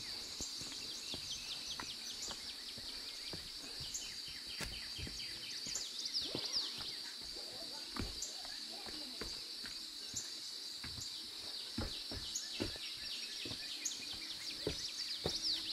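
Steady high trilling of crickets and other insects, with short clicks and thumps of footsteps on leaf litter and rock.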